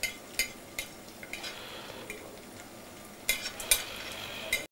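Onion, garlic and bay leaf sizzling gently in oil in an aluminium pan, with irregular sharp knocks of a utensil against the pan as they are stirred, several close together about three and a half seconds in.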